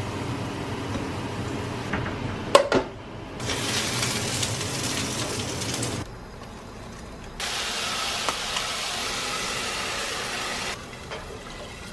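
Oil sizzling as a breaded pork cutlet fries in a non-stick frying pan, in two stretches of a few seconds each, with one sharp knock about two and a half seconds in.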